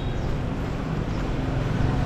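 Steady low rumble of street traffic, heard while walking along the street.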